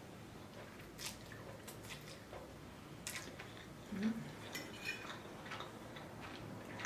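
Soft, scattered clicks of cutlery against a dish and wet eating sounds as seafood linguine is eaten, with a brief low hum about four seconds in.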